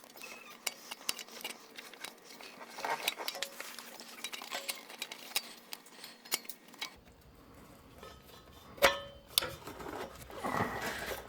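Light clicks and taps of small hard parts being handled, with one sharper click about nine seconds in.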